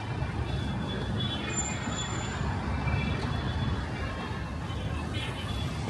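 Busy city street traffic: a steady mixed rumble of car, truck and bus engines and tyres.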